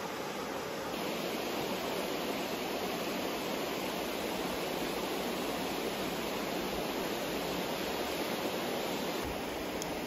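Shallow river flowing over rock ledges: a steady rush of water, a little louder from about a second in until near the end.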